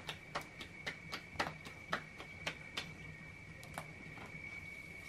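Hands patting a ball of tortilla dough flat by hand, a run of quick slaps about two to three a second that thins out and stops about three seconds in. A thin steady high-pitched tone runs underneath throughout.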